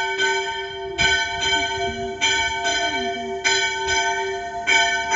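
A single church bell struck five times, about once every 1.2 seconds, each strike ringing on into the next. It is ringing out the hour of noon.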